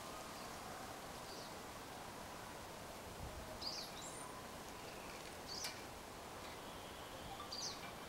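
Faint steady outdoor background hiss, with a bird chirping briefly three times, a couple of seconds apart.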